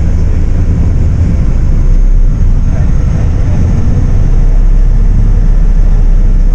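Diesel engine and road noise of a MAN 18.350 Modulo coach heard from inside the passenger cabin: a loud, steady low rumble.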